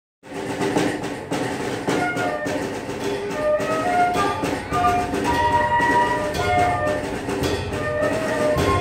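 School concert band playing: flutes and other woodwinds carry a melody over held chords, with drums keeping a steady beat.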